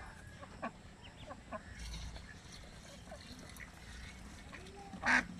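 Ducklings peeping in short, scattered high cheeps, with one louder, brief call about five seconds in.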